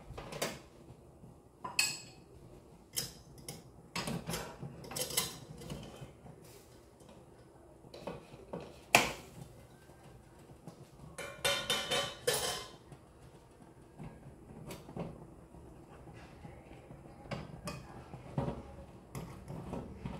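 Metal cookware clanking and scraping: a stainless steamer insert lifted out of a cooking pot and a metal spoon knocking and scraping inside the pot. The knocks come at irregular intervals, loudest about halfway through, followed by a ringing clatter.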